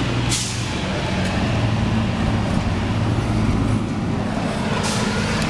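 Street traffic with a heavy vehicle's engine running steadily, and two brief sharp hisses: one about a third of a second in and one near the end.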